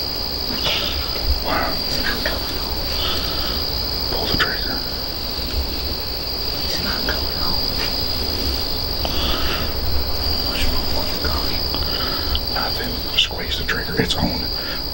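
Steady high-pitched insect chorus of crickets, with a low rumble underneath and scattered short chirps and clicks that come more often near the end.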